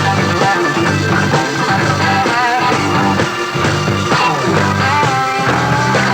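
Rock band playing an instrumental passage: a repeating bass line and drums under lead electric guitar phrases with bent, wavering notes.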